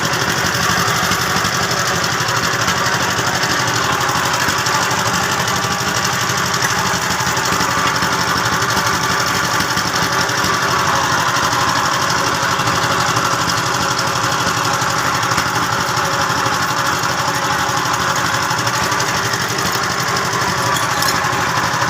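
A machine running steadily, a continuous mechanical drone without pauses.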